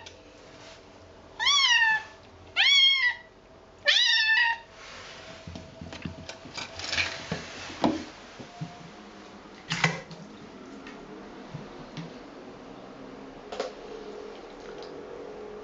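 Young kitten meowing three times in quick succession, each call loud and short, about a second apart. These are followed by scattered light knocks and rustling.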